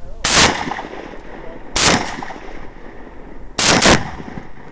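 Gunshots: a single shot about a quarter second in, another at about two seconds, then a quick pair close to four seconds, each followed by a short echo.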